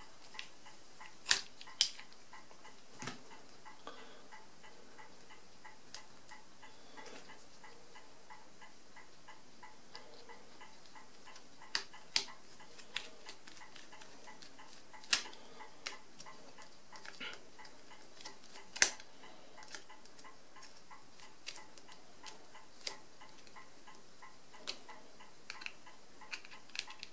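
Scattered sharp clicks and light knocks of small screws and a screwdriver at work on a mechanical calculator's end plate, a few much louder than the rest, over a faint regular ticking.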